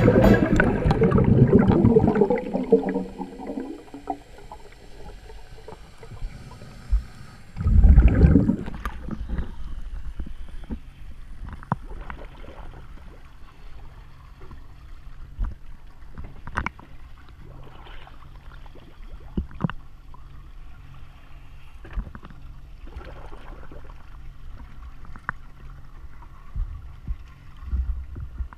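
Water sloshing, gurgling and lapping around a camera at the sea surface beside a boat. The churning is louder in the first few seconds, and there is a loud splash about eight seconds in. After that come small splashes and lapping.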